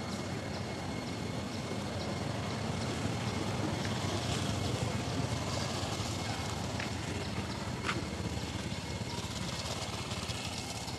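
Steady outdoor background noise, a low rumble with a faint steady high tone and a few faint clicks scattered through it.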